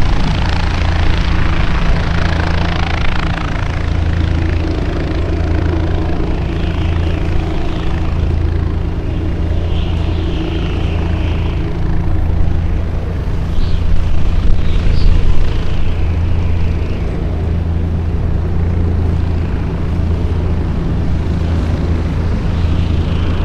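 An engine running steadily with a low, slightly pulsing drone.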